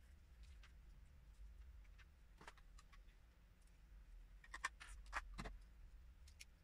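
Faint, scattered clicks of plastic Lego pieces being handled, with a small cluster of clicks a little over four seconds in, over a quiet low room hum.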